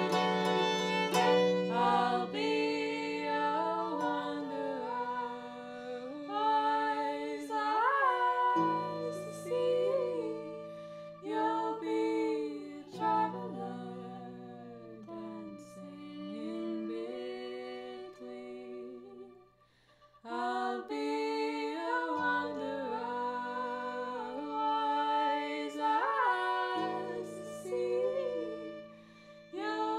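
A woman singing a slow, gliding melody over sustained harp chords, with the fiddle heard at the opening. A little past halfway the music falls almost silent for a moment, then voice and harp come back in.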